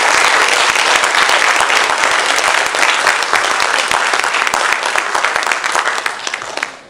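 Audience applauding; the clapping dies away near the end.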